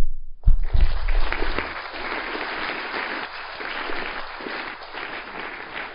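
Auditorium audience applauding, starting about half a second in and carrying on steadily, with a low thump at the start.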